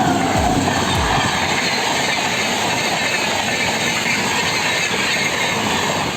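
Rajdhani Express passenger train passing close by at speed: a loud, steady rush and rattle of coach wheels on the rails.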